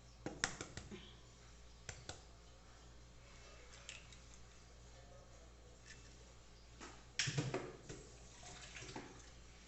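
An egg being cracked against a bowl and emptied into it: a few sharp taps near the start and around two seconds in, then a louder cluster of knocks and clatter about seven seconds in, with faint splashing of liquid.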